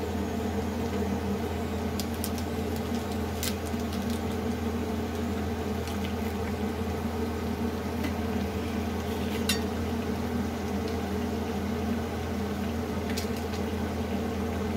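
Carrot halwa cooking in an iron kadhai over a gas flame, with a handful of sharp pops, over a steady low hum.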